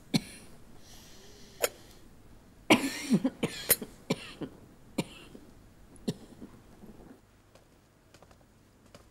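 A woman coughing into a handkerchief: a run of sharp coughs, with a close cluster of them about three seconds in, dying away after about seven seconds.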